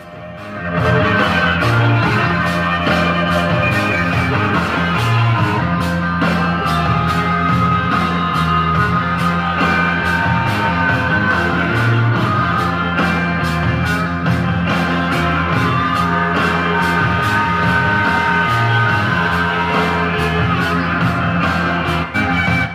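A rock song played loud through a Bennington pontoon boat's standard stereo from an iPod on the auxiliary input, with the volume at 40 out of 50. The music has a steady beat.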